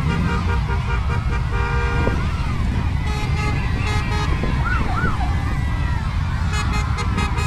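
Motorcycles rumble past at low speed while horns beep in quick repeated bursts near the start and again near the end. Children cheer, with a couple of high whoops about halfway through.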